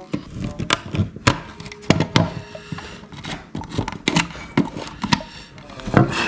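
Irregular sharp knocks and clacks, about one or two a second, with a brief scrape a couple of seconds in: hand work on a hard plastic battery adapter being trimmed and tried for fit.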